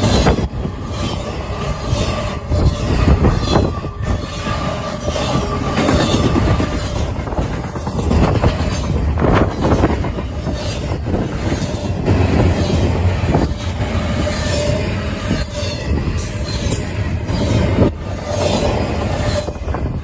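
Double-stack intermodal well cars rolling past: a steady rumble of wheels on rail, broken by irregular clicks as wheels cross rail joints. A thin squealing tone from the wheels comes in for several seconds near the start and again in the last few seconds.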